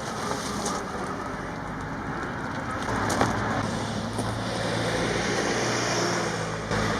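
A motor vehicle's engine running nearby, with a steady low hum that sets in about three seconds in over a general outdoor noise.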